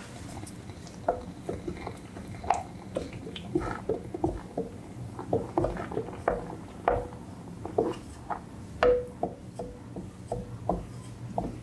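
A spoon stirring thick soup in an amber glass pot, knocking and clinking against the glass in irregular light taps about once or twice a second, several with a short ring.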